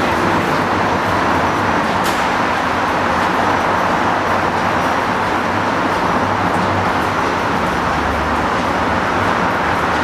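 Steady rush of traffic noise, with a street accordion playing faintly under it.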